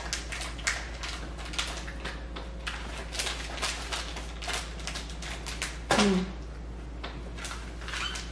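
Chocolate bar wrapper crinkling and crackling as it is handled, in irregular bursts of small crackles. A short vocal sound comes about six seconds in.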